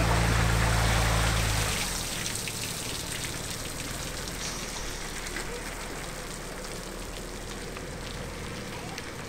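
The SUV's engine running steadily as it pulls an inflatable boat on its trailer up a wet slipway, stopping after about two seconds. After that comes a quieter, steady hiss with light pattering, like dripping water.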